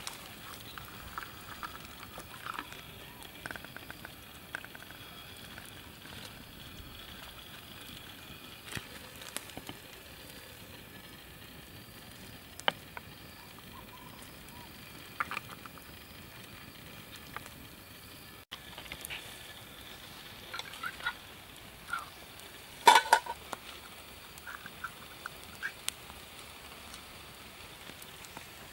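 Small stick campfire crackling, with scattered sharp pops and clicks over a faint steady hiss. Light clinks and knocks of a metal canteen and a tin can being handled, with one louder clatter late on.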